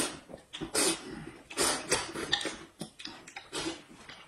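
A person eating noisily at the table: a run of short slurps and smacks, roughly one a second.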